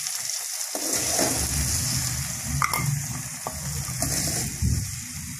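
Small onions, tomatoes and dried red chillies sizzling in hot oil in a pan, with a metal ladle scraping and clinking against the pan a few times as the sautéed mixture is scooped out.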